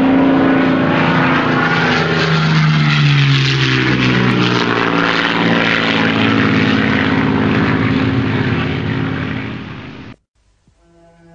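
Funtana RC aerobatic model airplane's engine and propeller running hard, heard from an onboard camera. The pitch slides and shifts over a loud rush of noise, then cuts off suddenly near the end.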